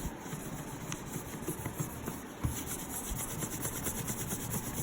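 Hand wiping excess water-based wood putty off the joints of a prefinished hardwood floor, quick repeated rubbing strokes across the wood.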